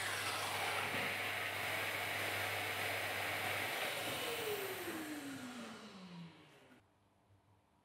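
Bosch plunge-cut track saw running free just after a cut through birch plywood, with its dust-extraction hose attached. It is switched off about four seconds in, and the motor winds down with a falling whine, fading out by about seven seconds.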